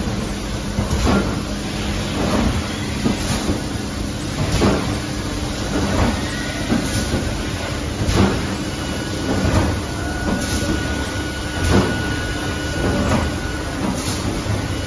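ILLIG RDM 75K inline thermoformer running, cycling with a regular sharp knock about once every second or so over a steady machine hum.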